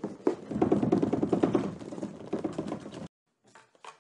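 Cardboard packaging and a fabric pan bag being handled: rustling and scraping with many small knocks as a boxed frying pan is worked out of its box. The noise is dense for about three seconds, then cuts off suddenly.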